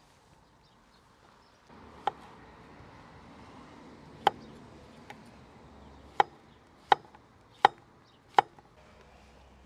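Knife chopping food on a board, six sharp single chops with the last four coming about every 0.7 s.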